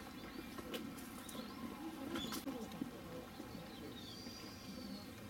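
Outdoor ambience with a low background murmur and a few light clicks, then a short high chirp that rises and falls about four seconds in.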